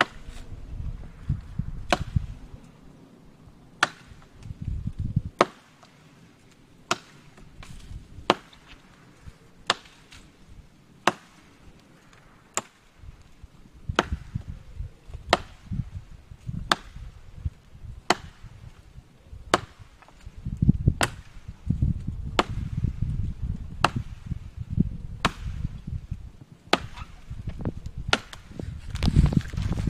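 Chris Caine survival tool, a heavy chopping blade made by Battle Horse Knives, chopping into the trunk of a small standing tree. Each swing is a sharp crack of steel biting deep into the wood, coming about once every second and a half, stroke after stroke.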